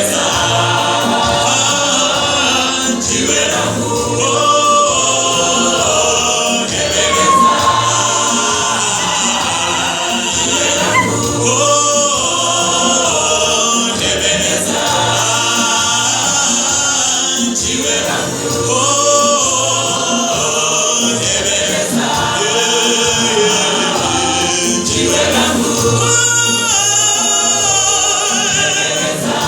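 A choir singing a gospel song, many voices together over a low bass part that repeats steadily.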